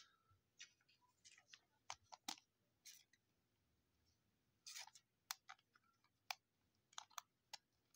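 Faint, scattered clicks and crinkles of a trading card and a clear plastic card sleeve being handled as the card is sleeved.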